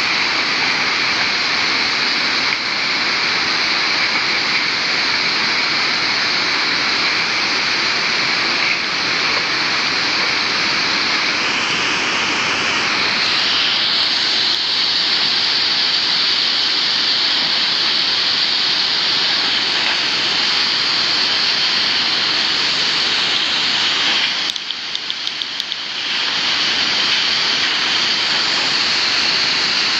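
River water rushing: a loud, steady rush of flowing water that briefly drops in level for a second or so near the end.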